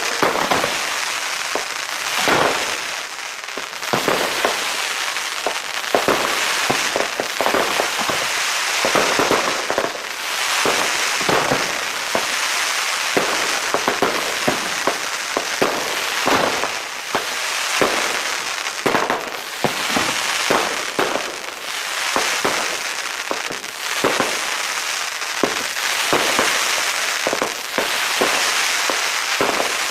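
Fireworks going off: a steady hiss under a dense, unbroken run of rapid crackling pops.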